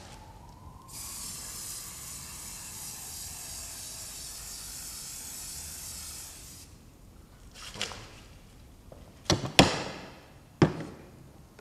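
Aerosol spray can hissing steadily for about six seconds as it is sprayed at the back of a canvas, followed by four sharp knocks near the end, the last three the loudest.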